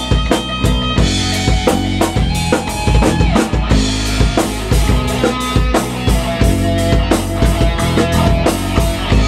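Electric guitar played along with a rock backing track that has a full drum kit keeping a steady beat.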